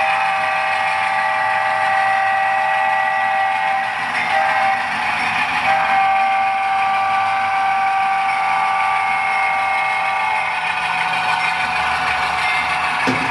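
HO-scale GE C39-8 model locomotive's LokSound sound decoder sounding its horn: a long blast, a short one, then another long blast, the pattern of a grade-crossing signal. Underneath is the steady run of the decoder's diesel engine sound.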